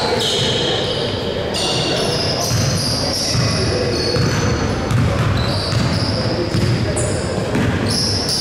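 Basketball game in play: the ball bouncing on the court, sneakers giving short high squeaks, and players' voices.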